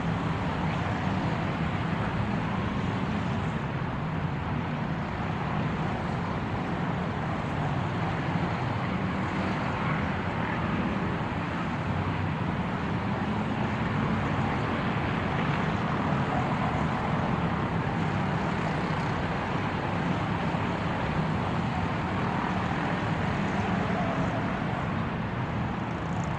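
A car driving at a steady speed, its engine and road noise running evenly without revving or change.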